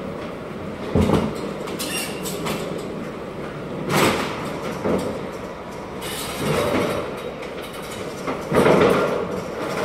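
Hand pallet jack pulling a loaded pallet of crates along a trailer floor, its wheels rumbling and rattling, with metal clanks about a second in and around four seconds in. The loudest clatter comes near the end as the wheels reach the steel dock plate.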